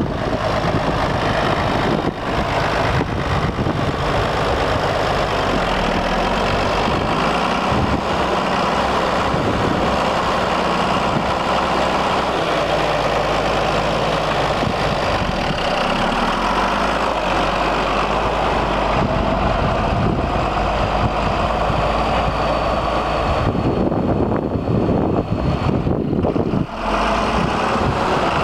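1975 John Deere 4630 tractor's turbocharged six-cylinder diesel engine running steadily while the tractor is driven.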